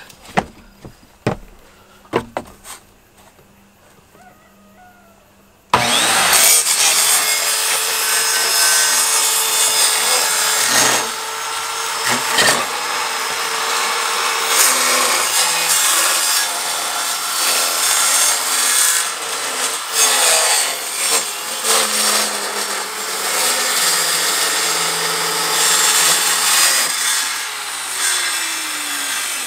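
A few sharp knocks, then a handheld circular saw starts suddenly about six seconds in and rips lengthwise along a narrow plywood board for about twenty seconds, its motor whine steady under the cutting noise. The blade winds down near the end.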